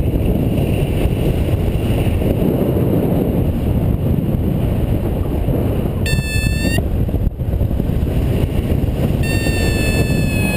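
Wind rushing hard over the microphone of a paraglider in flight. A high, even tone sounds briefly about six seconds in and again steadily from about nine seconds in.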